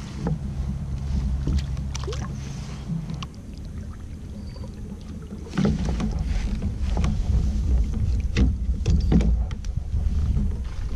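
Wind buffeting the microphone on a fishing kayak, a heavy uneven rumble that gets louder a little past halfway. Scattered clicks and knocks from the kayak and fishing tackle come through it.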